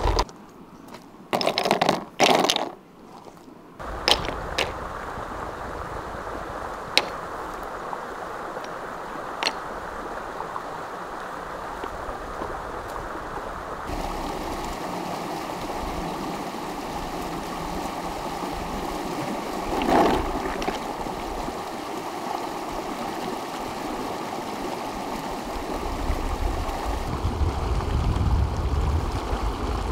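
A shallow, rocky stream rushing steadily over stones. In the first few seconds, flat stones clack as they are picked up and set on a wooden tray. About two-thirds of the way through there is a louder splash as someone wades through the water.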